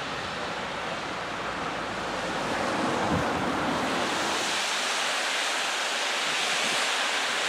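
Steady rushing noise of wind buffeting the microphone, with two faint low thumps. About four and a half seconds in the low rumble drops away, leaving a thinner, higher hiss.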